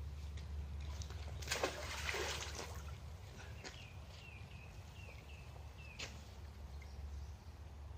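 A magnet-fishing magnet splashing into the canal once, about a second and a half in. Then a bird gives a run of about six short, falling chirps.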